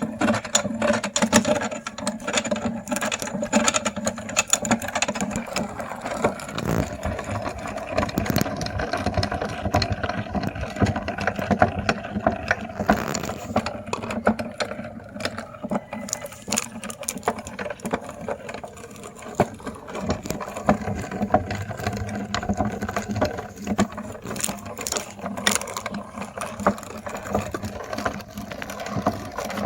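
Meat grinder running with a steady motor hum while it crunches and crackles through mini ice cream cones. The grinding starts abruptly and keeps up with dense, irregular cracking.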